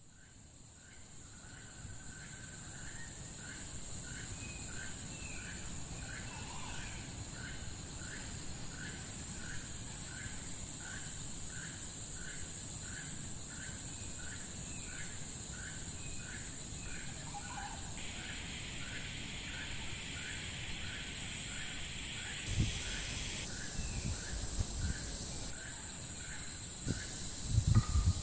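Tropical rainforest ambience: a steady high-pitched insect drone with a short chirping call repeated about one and a half times a second, fading in over the first few seconds. Low thumps on the microphone come in the last few seconds.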